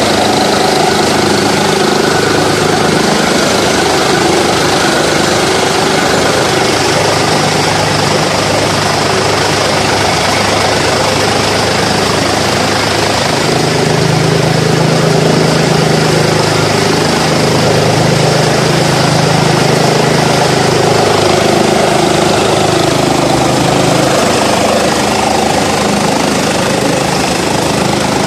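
Tractor-driven three-blade, double-wheel chaff cutter running under load, chopping fodder and blowing the cut chaff out through its delivery pipe in a loud, continuous rush over the low hum of the driving engine. The hum swells for several seconds about halfway through.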